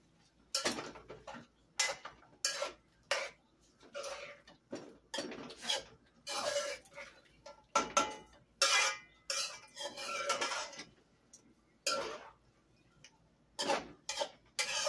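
A cooking spoon stirring chopped chicken in a metal pot, scraping and knocking against the sides in a dozen or so irregular strokes, with a brief pause near the end.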